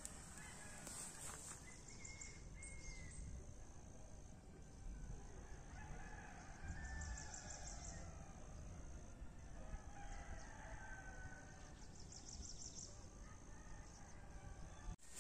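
Faint rooster crowing and chicken calls over a steady high-pitched whine, with short high trills coming three times.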